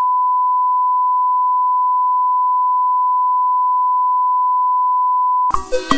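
Steady 1 kHz line-up test tone of the kind played with colour bars, one unchanging pitch. About five and a half seconds in it cuts off and upbeat music with percussion starts abruptly.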